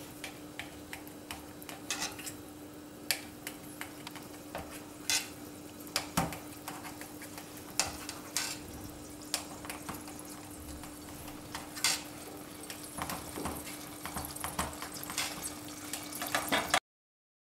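Knife cutting soft steamed dhokla on a steel plate: irregular sharp clicks and taps of the blade against the metal plate, over a faint steady hum. The sound cuts off abruptly near the end.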